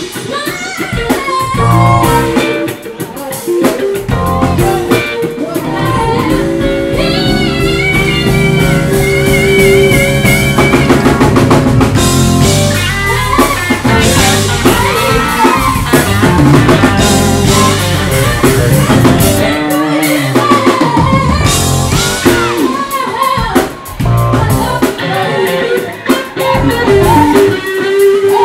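Live band music: a woman singing into a microphone, backed by electric guitar and drum kit.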